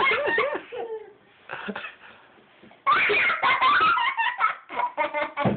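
Hearty laughter in two bouts: one in the first second, then a longer run of quick laughing pulses from about three seconds in until near the end.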